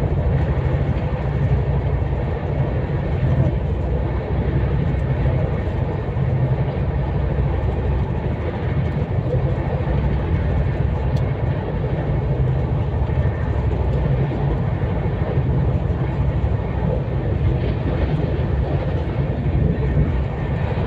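Steady deep rumble of the 12393 Sampoorna Kranti Express running at high speed, its wheels on the rails heard from inside the passenger coach.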